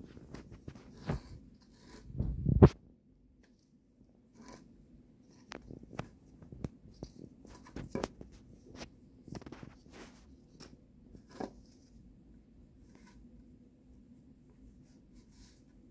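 Crumbly, stretchy dough-like play material being pulled apart and squeezed by hand in a plastic jar, giving irregular soft tearing and crackling sounds. A loud thump comes about two and a half seconds in, and the handling grows quieter near the end.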